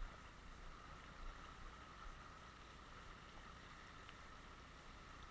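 Faint, steady rush of a flowing river's current.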